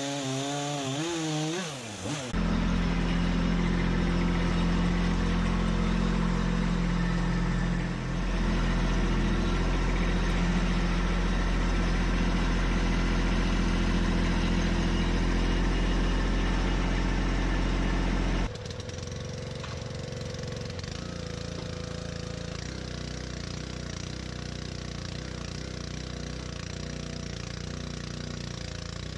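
An engine running steadily at high speed, dips briefly once, then drops to a lower idle about two-thirds of the way through.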